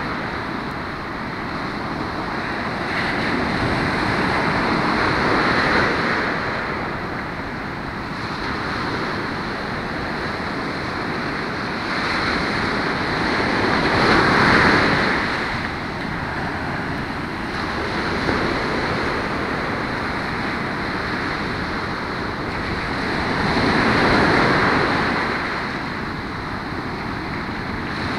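Ocean surf breaking and washing up a sandy beach: a continuous rushing wash that swells louder three times, about ten seconds apart, as the bigger waves break.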